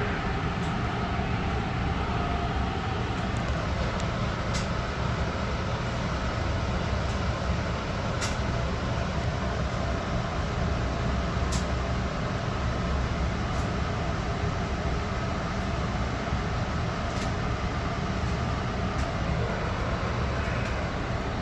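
Long Island Rail Road M3 electric multiple-unit railcar running along the track, heard from inside the car: a steady rumble of wheels and running gear with a few sharp clicks scattered through it.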